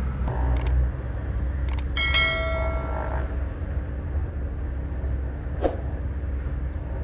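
Heavy diesel excavator running steadily, with a ringing metal clang about two seconds in and a few sharp knocks.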